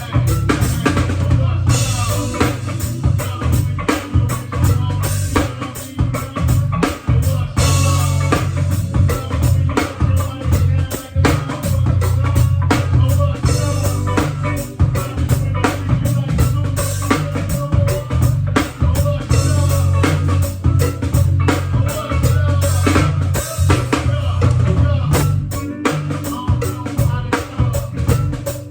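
Band music driven by a drum kit and a heavy bass line, playing steadily.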